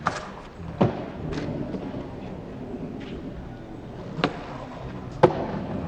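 Skateboard rolling on concrete with a steady low rumble, broken by four sharp board slaps and clacks: two within the first second and two more a second apart near the end.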